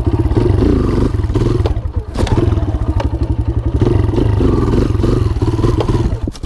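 Kawasaki KLX140 dirt bike's single-cylinder four-stroke engine running and revving during wheelie practice, with a sharp knock about two seconds in. The engine sound drops away at the end.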